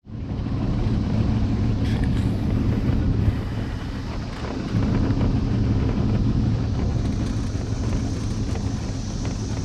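A boat's engine running steadily as the boat travels, with wind noise on the microphone.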